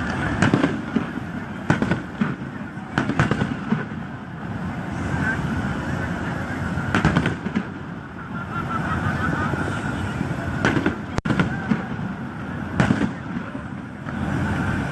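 Aerial fireworks going off: sharp bangs at irregular intervals, a few close together, over a continuous crackle and rumble.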